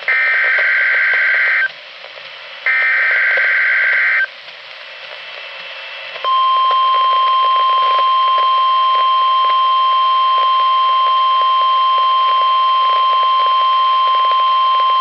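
NOAA Weather Radio emergency alert tones from a weather radio's speaker: the last two of the three SAME header bursts, each a raspy, warbling digital data screech about a second and a half long, then after a short pause the steady 1050 Hz warning alarm tone, held for about nine seconds. This is the start of an Emergency Alert System Required Weekly Test.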